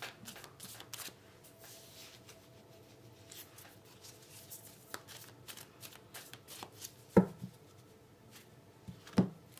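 A deck of tarot cards being shuffled by hand: a run of soft, quick card clicks, with two louder knocks about seven and nine seconds in.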